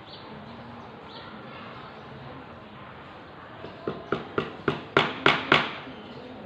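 Hammer blows, about seven quick strikes a little more than half way in, each louder than the last, with the final three the loudest.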